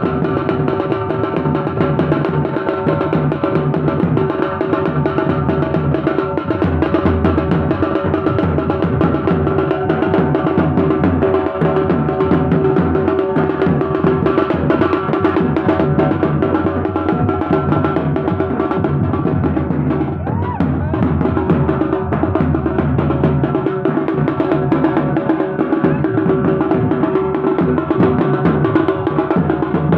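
Fast, continuous drumming of a procession drum band, dense and without a break, with steady held tones above it.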